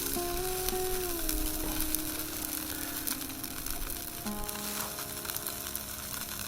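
Chicken skin skewers sizzling over charcoal, a steady hiss with fat crackling and spitting.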